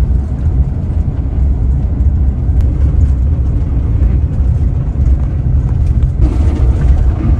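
A van's engine and tyre rumble, heard from inside the cab while driving: a steady deep rumble.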